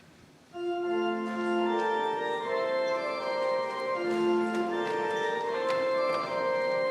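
Church organ starts playing about half a second in, with held chords in the middle and upper range that change every half second to a second.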